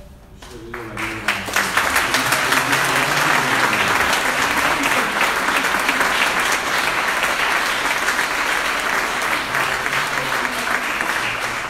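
Audience applauding. The clapping builds over the first second or two, then holds steady, easing slightly near the end.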